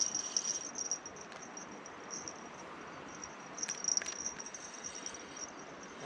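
Insect chorus: a high-pitched buzz that swells and fades, with a couple of sharp clicks about four seconds in.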